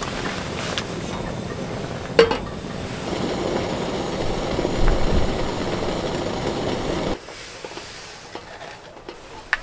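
Camping gas stove burner running under a metal kettle with a steady rushing hiss, with one metal clink of the kettle on the stove grate about two seconds in. The burner sound cuts off suddenly about seven seconds in.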